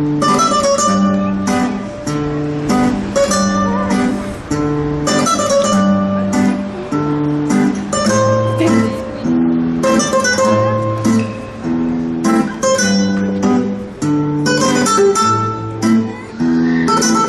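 Strummed acoustic guitar music with a steady rhythm and a moving bass line.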